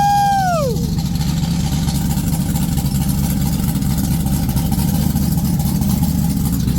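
Ford 302 V8 with an F303 cam running at a steady idle. In the first second there is a short rising-and-falling vocal whoop.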